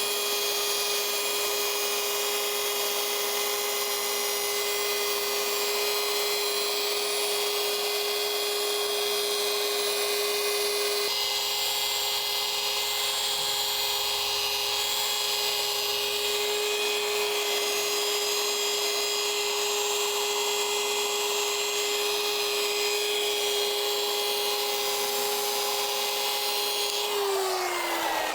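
Handheld electric paint-correction machine (sander/polisher) running steadily against the truck's paint with a constant high whine, its pitch shifting a little partway through, then winding down with a falling whine as it is switched off near the end.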